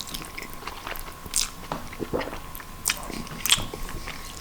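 Close-up eating sounds of a person chewing mouthfuls of noodles: irregular wet chews and mouth smacks, a few short sharp ones standing out.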